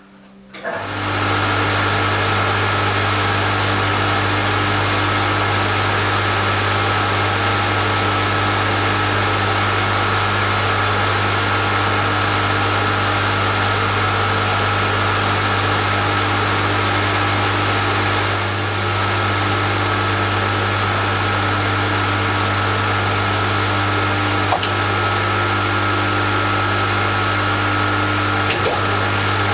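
Schaublin 102 lathe's electric motor starting about a second in, then running steadily with a constant low hum and a higher whine, while the wheel blank's outside diameter is turned to size. Two faint clicks come near the end.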